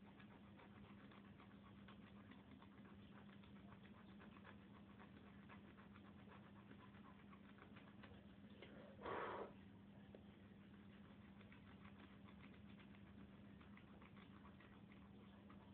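Faint, rapid scratching of a fingernail scraping the coating off a paper scratch card on a wooden table, over a steady low electrical hum. About nine seconds in there is a brief, louder rush of noise lasting about half a second.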